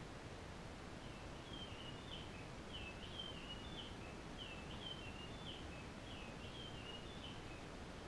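Osprey calling: a faint run of short, whistled chirps that rise and fall, about two a second for some six seconds, over a steady hiss.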